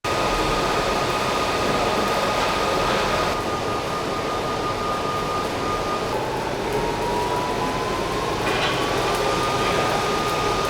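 Loud, steady machine noise from shop work, with a thin high whine that sinks in pitch about halfway through and climbs back over the next few seconds.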